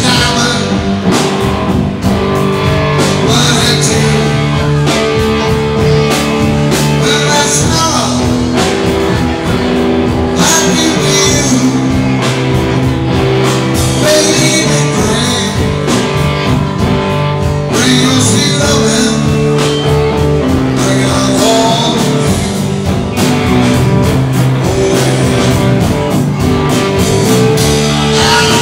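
Live rock band playing loud, steady blues-rock: electric guitars, bass guitar and a drum kit.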